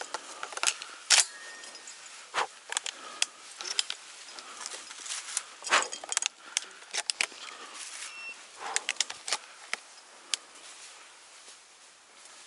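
Footsteps crunching through dry fallen leaves, with twigs and brush snapping and scraping: an irregular series of sharp crackles and clicks over a faint rustle.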